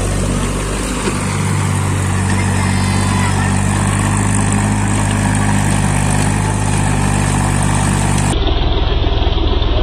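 Tractor engine running steadily. About eight seconds in, the sound turns duller, with a rapid low pulsing.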